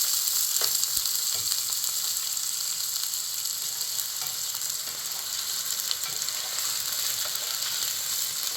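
Food sizzling in a hot pan: a steady hiss with a few faint crackles.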